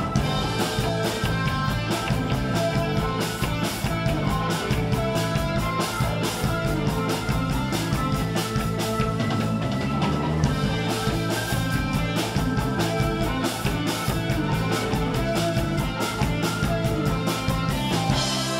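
Instrumental rock music with guitar and a steady drum beat.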